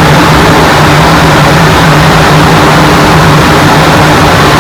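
Steady, loud airliner cockpit noise: a constant rush of engine and airflow noise with an even low hum underneath.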